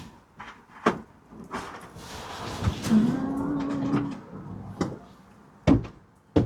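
Scattered knocks and clicks from handling the cable and the van's panels while wiring the reversing camera, with a short held whine about three seconds in.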